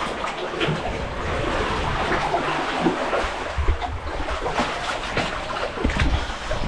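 Sea waves splashing and sloshing around swimmers, many small splashes over a low rumble.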